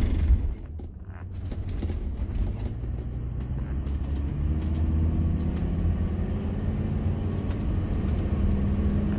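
RV engine and road noise heard from inside the cab while driving on the highway, the engine note slowly rising in pitch as it speeds up. A brief loud thump right at the start.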